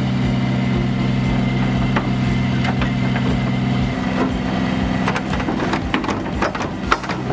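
Metal clinks, clanks and scrapes from tow rigging being hooked under a crushed car's front end, coming thickest in the second half, over a steady low hum.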